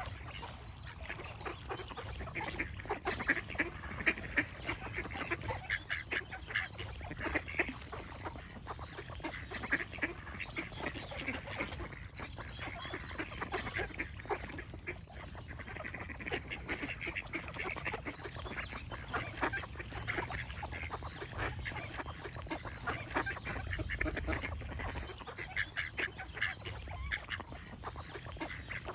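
A flock of ducks quacking, with many short calls overlapping in rapid clusters that rise and fall, over a low steady rumble.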